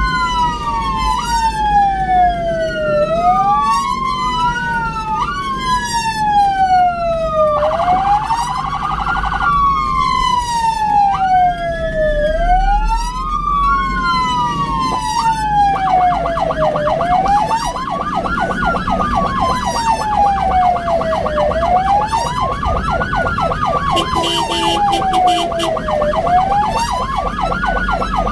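Ambulance siren wailing, its pitch rising and falling over and over. A steady blaring tone cuts in briefly a little over a quarter of the way through, and from about halfway the wail takes on a rapid buzzing flutter.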